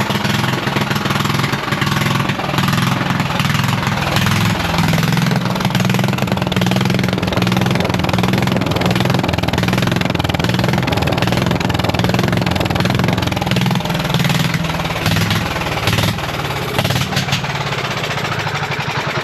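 Straight-piped ride-on lawn mower engine running hard with a rough, rapid firing note. It eases off and settles lower near the end.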